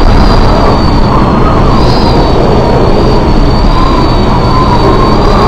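Storm wind roaring steadily across a container ship, with a faint wavering whistle above the roar.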